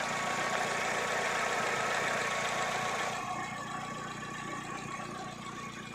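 Chevrolet Spark petrol engine idling steadily, running again now that its corroded ECM ground connection has been cleaned and re-made. It gets somewhat quieter and duller about three seconds in.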